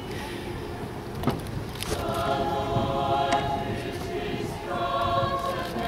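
Mixed choir of high-school graduates singing, the held chords starting about two seconds in.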